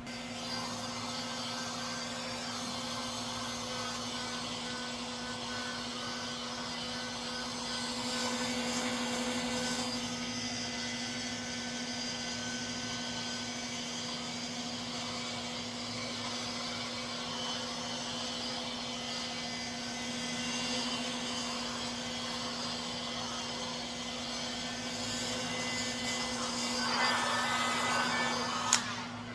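A machine running steadily, a constant hum under an even hiss, with a sharp click near the end.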